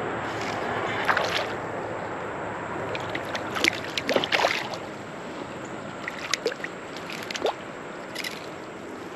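Creek water sloshing and splashing around a fishing raft, with a handful of short sharp splashes and clicks, as a hooked fish is fought and brought in.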